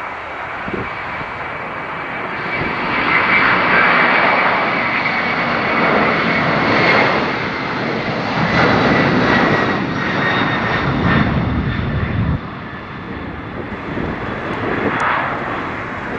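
Jet airliner's engines passing close by, a loud rushing roar that swells a couple of seconds in, with a high whine that slowly falls in pitch as the aircraft goes past.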